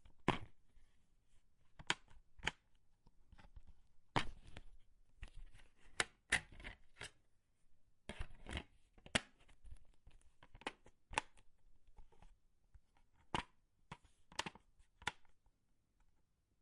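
A plastic DVD case being opened and handled: a series of sharp snaps and clicks, about fifteen spread irregularly, with brief rustling and scraping between some of them.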